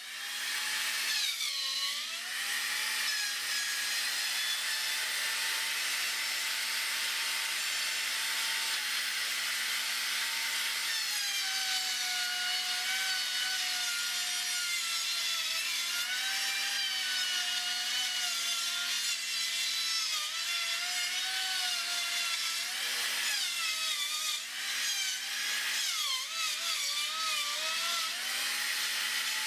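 Plunge router running at high speed with its bit cutting through wood as it is swung around a pivot pin to rout a circle. The motor's high whine sags in pitch several times as the bit takes load, then recovers, most often near the end.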